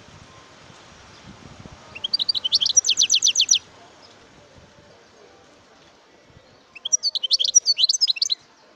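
European goldfinch singing: two bursts of rapid, high, twittering notes, the first about two seconds in and the second near the end.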